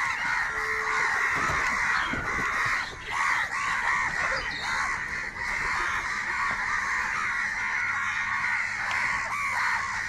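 A flock of crows cawing continuously, many calls overlapping.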